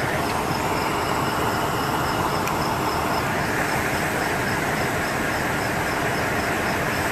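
Fire engine's diesel engine idling, a steady rumble and hiss, with a faint high ticking repeating about four times a second.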